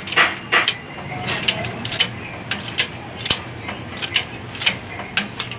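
Hydraulic bottle jack in a shop press being pumped by hand, its handle and pump giving a rhythmic metallic click with each stroke, about two a second, as the press bears down on a tight axle bearing.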